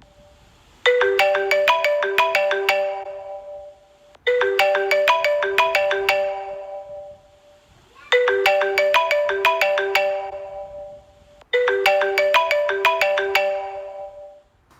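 Mobile phone ringtone: a short tune of quick, sharply struck, marimba-like notes that fades away and repeats four times.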